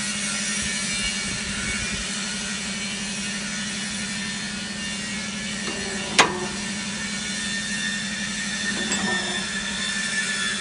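Scissor lift's hydraulic power unit running with a steady hum as the lift moves. There is a single sharp metallic click about six seconds in, from the toothed mechanical safety lock catching.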